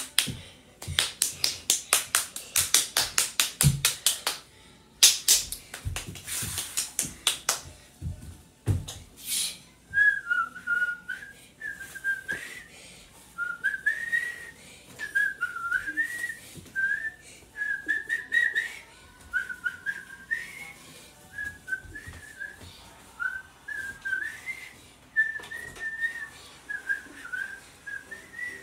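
A quick run of sharp clicks, several a second, for the first several seconds. Then someone whistles a wavering tune in short phrases for the rest.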